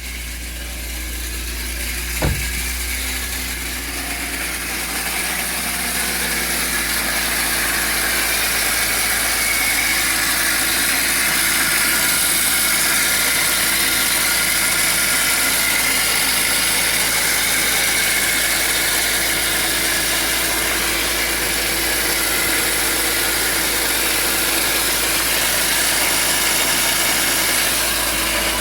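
BMW E46 323i's M52 straight-six running at idle, with a screeching noise from the engine bay. There is a single sharp click about two seconds in.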